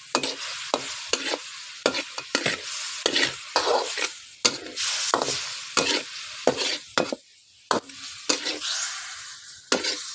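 Food sizzling as it fries in a pan, with a spatula repeatedly knocking and scraping against the pan as it is stirred. The sizzle briefly drops about seven seconds in.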